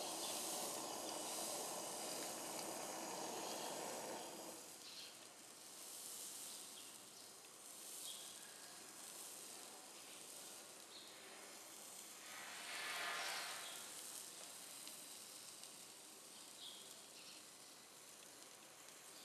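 Hand-held gas torch flame hissing as it heats recovered silver powder in a ceramic crucible to melt it. The hiss is stronger for about the first four seconds, then drops, with a short swell about thirteen seconds in.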